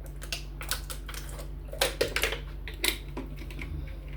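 Irregular light clicks and taps of dishes and cutlery being handled at a meal, loudest about two and three seconds in, over a steady low hum.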